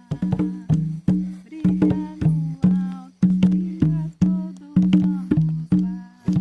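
Capoeira music with no singing: a berimbau played in a steady rhythm of about two strikes a second, alternating between two low notes, its overtones bending as the gourd moves. Sharp clicking percussion falls between the strikes.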